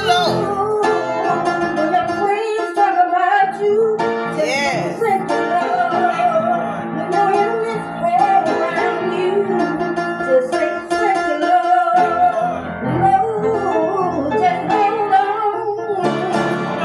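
A woman singing into a microphone over guitar accompaniment.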